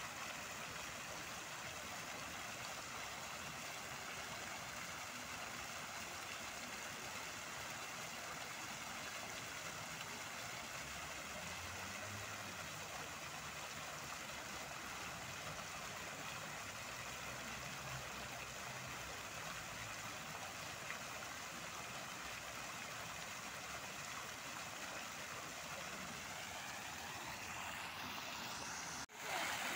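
Illuminated park fountain: many jets splashing into the basin, a steady rush of falling water that cuts off abruptly near the end.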